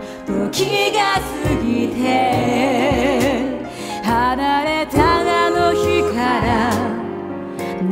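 A woman singing a Japanese ballad over instrumental backing, her held notes wavering with vibrato.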